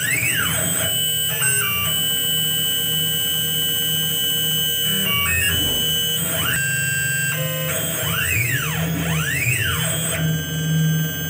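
Stepper-driven axes of a Tormach PCNC 1100 CNC mill whining as its drag knife cuts gasket material. Over steady high tones, pairs of whines glide up and back down in pitch as the table traces the gasket's curves.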